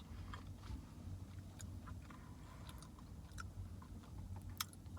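Quiet chewing of a veggie burrito with soft, wet mouth clicks scattered throughout, one sharper click near the end, over a steady low hum.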